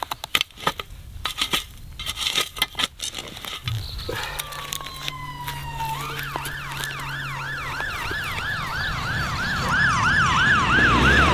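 Spade and gloved hands scraping and tugging at burnt gorse roots in the soil, short knocks and crackles. About four seconds in a fire engine's siren comes in, a falling wail with the engine running underneath, then from about six seconds a fast yelp of about three rises a second that grows louder as it approaches.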